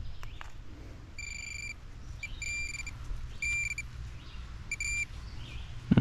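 Metal detector beeping at one steady pitch over a buried metal target: a long beep about a second in, then several short ones. A sharp thump near the end is the loudest sound.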